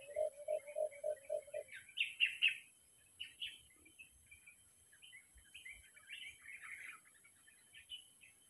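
A dove giving a quick run of low, pulsed coos, about six a second, which stops near the two-second mark. Small birds then chirp and twitter in short high bursts, loudest just after the cooing ends.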